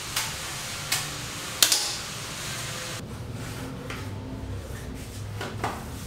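Three sharp knocks of a long-handled cleaning tool against a window frame, over a steady hiss. Then a few soft scrapes of a broom on concrete steps.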